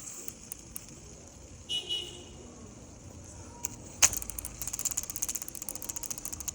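Fidget spinner flicked into a spin with a sharp click about four seconds in, then rapid, even ticking as it whirls.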